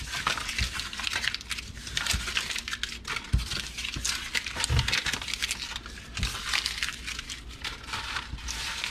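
Paper entry slips being crumpled up by hand: a continuous crinkling and crackling, with a few dull thumps along the way.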